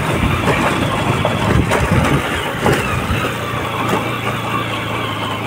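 CBZ motorcycle's single-cylinder engine running, with an irregular clattering over roughly the first three seconds that the rider puts down to a slightly slack drive chain, then settling to a steady hum.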